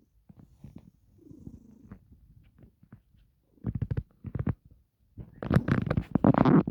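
A domestic cat purring close up: faint at first, then much louder in two spells, about a second and about a second and a half long.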